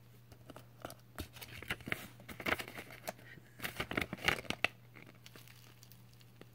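Glued-on paper or plastic being peeled off the back of a steelbook case: irregular tearing and crinkling, busiest in the middle and dying down near the end. The glue is holding firmly.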